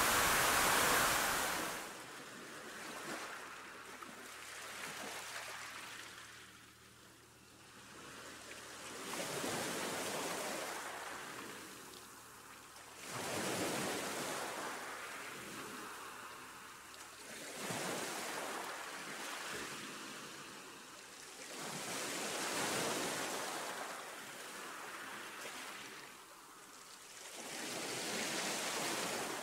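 Ocean waves washing in, the rush of surf swelling and fading about every four to five seconds, after a louder, steadier rush of water in the first two seconds.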